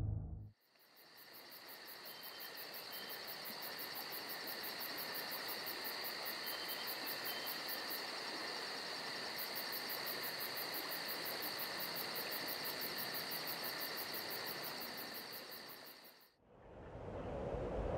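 Insect chorus of crickets: a steady high trilling with a fast pulsing buzz above it, fading in at the start. About sixteen seconds in it stops, and a lower rushing noise begins.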